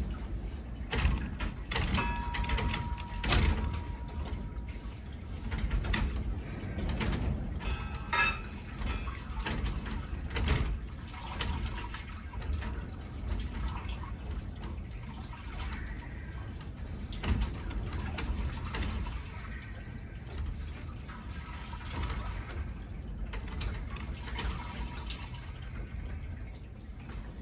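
Wort running and dripping from a brew-in-a-bag grain bag into the stainless kettle as it is squeezed by gloved hands, coming in uneven surges with handling noise from the bag.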